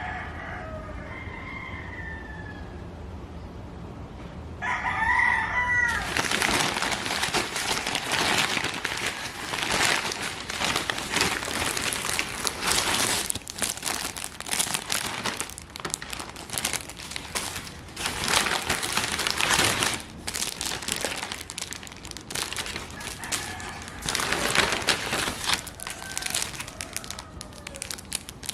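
A rooster crowing near the start and again about five seconds in. Then a loud, dense crackling noise full of small sharp snaps takes over, with faint crowing again near the end.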